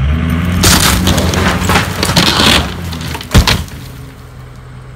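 A pickup truck's engine pulls hard on a chain while the wooden wall framing of a shed add-on cracks and splinters under the strain. A single loud crack comes about three and a half seconds in, after which the engine settles to a quieter, steady run.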